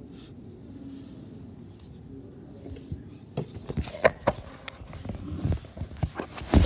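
Clothing fabric rubbing and bumping against the phone's microphone: a faint low rumble, then from about three seconds in an irregular run of knocks and rustles that grows louder toward the end.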